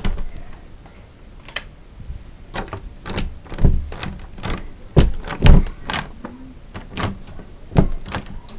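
A string of irregular knocks, clicks and thumps, some sharp and light, a few heavier, with no steady rhythm.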